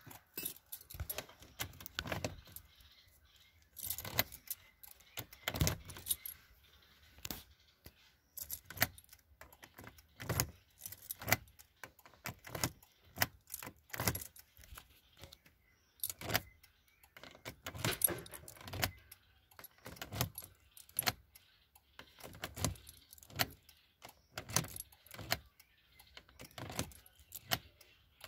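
Irregular clinking and clicking of small metal objects being handled, jangling like keys, in quick clusters with short pauses between.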